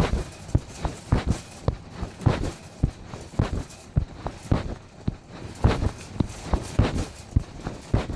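Footsteps and pocket fabric rubbing over a phone's microphone while walking: muffled, uneven knocks about two to three a second over a scratchy rustle.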